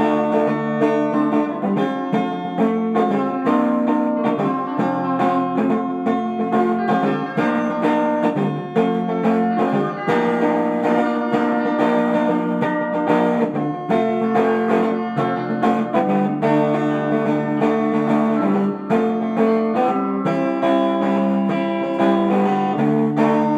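Guitar music, plucked and strummed, playing continuously.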